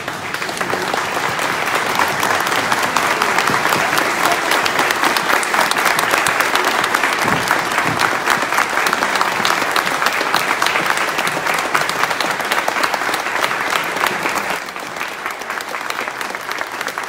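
Large audience clapping in sustained applause, dense and even, easing a little near the end.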